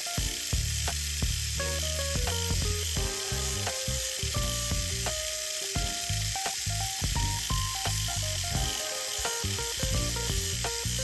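Background music with a melody of short notes over a bass line, with a steady hiss throughout.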